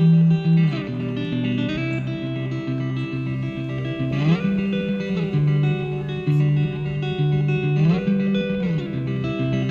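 Background instrumental music led by plucked guitar over a bass line. The notes repeat in a steady pattern, with sliding notes about every four seconds.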